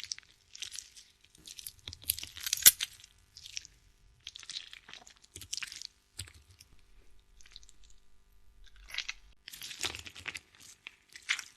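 Close-up eating sounds: crunchy bites and chewing in uneven bursts, with one sharp crack about two and a half seconds in.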